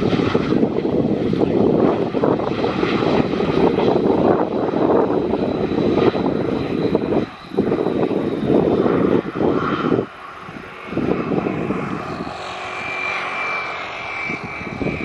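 Lufthansa CityLine Bombardier CRJ900's twin rear-mounted turbofans running loudly as it rolls out on the runway just after landing. The loudness drops sharply twice, and a high whine comes in near the end.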